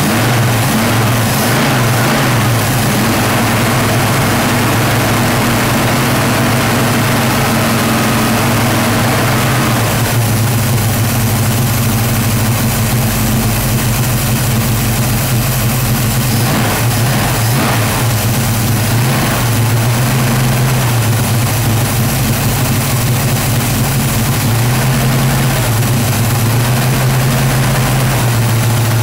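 1968 Mercury Cougar's carbureted V8 running steadily at a high idle, around 2200 rpm, on its first start after sitting 15 years. It is kept going on an aerosol sprayed into the carburetor while the fuel pump primes, and the carburetor is not yet tuned.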